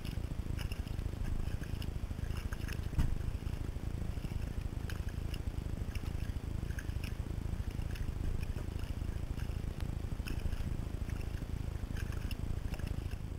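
A kayak moving across a lake, heard through a GoPro suction-cupped to its bow: a steady, muffled low rumble of water and wind, with scattered small ticks and splashes.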